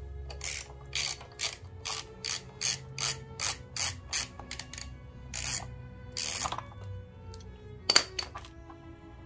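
Hand socket ratchet clicking through quick repeated strokes, about three a second, then stopping, with one sharp louder clack near the end.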